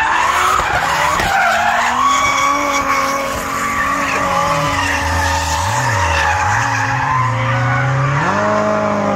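A drifting car's engine revving hard with its tyres screeching as it slides sideways through a corner, burning rubber into smoke. The engine note dips and climbs several times mid-slide and rises again near the end.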